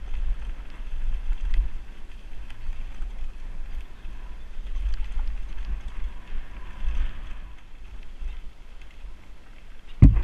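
Wind buffeting a helmet-mounted action camera's microphone while a mountain bike descends a dirt forest trail, with scattered small clicks and rattles from the bike over the ground. A single hard thump comes near the end.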